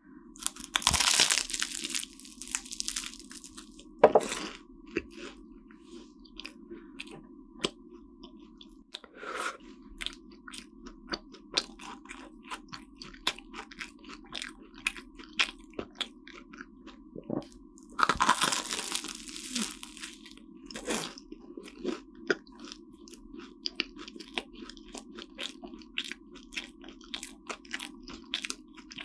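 Flaky croissant crust crunching under close-miked bites, loudly about a second in and again past the middle, with a sharp click about four seconds in. Between them come steady chewing and wet mouth clicks of pastry and cream, over a faint steady hum.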